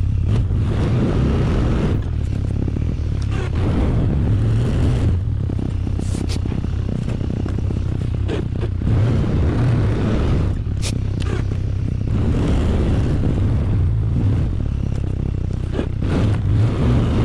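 ATV engine running steadily under load, with scraping and clattering now and then, typical of plowing snow.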